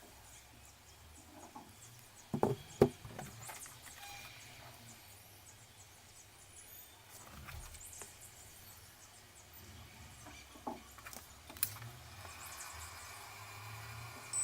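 A few sharp knocks and clicks over a faint low hum, with two loud knocks close together about two and a half seconds in and two lighter ones near the end.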